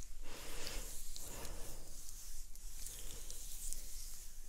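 Oiled hands rubbing and massaging close to the microphones, in slow repeated swishing strokes with small wet squishing clicks.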